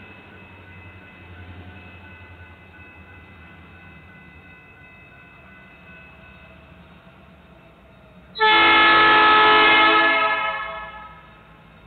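Locomotive air horn, several notes sounding together as a chord, sounded once for about two seconds starting about eight seconds in. It cuts in suddenly, then fades away.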